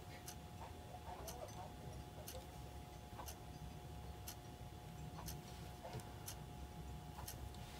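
Clock ticking faintly and evenly, about once a second, over a faint steady hum.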